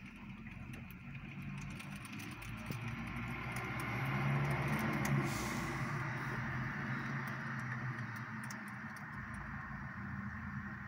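Steady heavy rain, with scattered drops ticking, and a low rumble that swells about four to six seconds in.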